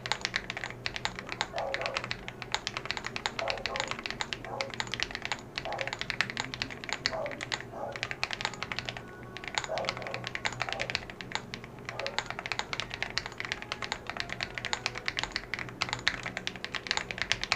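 Fast typing on a CIDOO ABM066 mechanical keyboard fitted with lubed KTT Grapefruit linear switches and screw-in stabilizers: a dense, continuous run of keystrokes with a short pause about nine seconds in, picked up by a low-quality headphone microphone.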